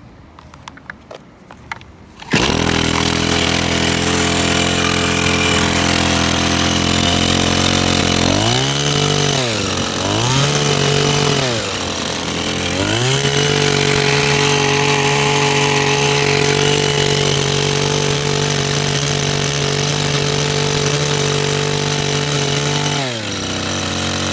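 Kawasaki pole pruner's small two-stroke engine, which catches about two seconds in after a few clicks and runs steadily. Around the middle its revs drop and pick up again twice, then hold at a higher speed, and they fall away slightly near the end.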